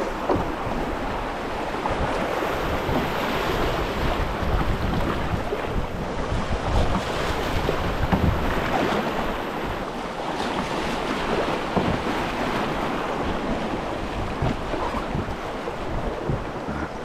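Rushing, churning water of a river swift around a canoe running downstream, with wind buffeting the microphone in low gusts.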